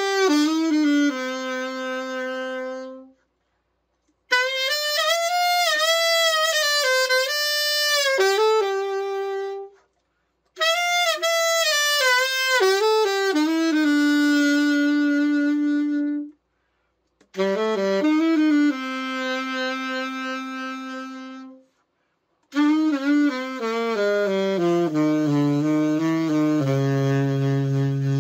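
Selmer Mark VI alto saxophone being play-tested after a full overhaul: five short melodic phrases with brief pauses between them, most ending on a held note. The last phrase steps down to a long low note near the bottom of the horn's range.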